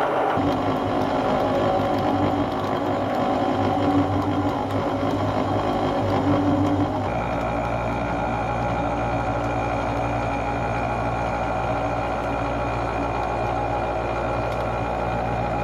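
Bridgeport milling machine running, its carbide cutter facing a rust-pitted steel plate to take out deep gouges. About seven seconds in, the sound changes abruptly from the busy cutting noise to a smoother, steady machine hum.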